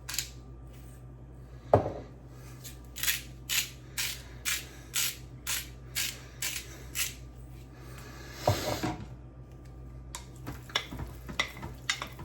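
Salt and pepper being dispensed over chopped raw chicken: a run of short, crisp strokes, about two a second. There is a thump near the start, a longer rustling burst about two-thirds of the way in, and a few more strokes near the end.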